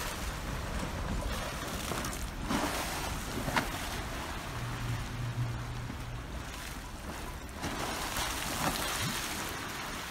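Swimming-pool water sloshing and splashing in waves against the pool walls, stirred up by earthquake shaking.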